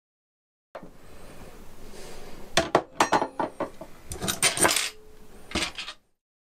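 Metallic clinking and clattering as plumbing fittings and tools are handled at a stainless steel sink. The sound cuts in about a second in, has bunches of sharp clinks in the middle and again near the end, then cuts off abruptly.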